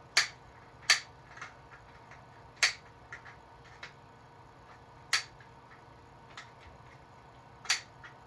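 Sharp plastic clicks and snaps from a 3D-printed lever-action rubber band gun being handled and worked: about five loud clicks at uneven intervals, with fainter ticks between them.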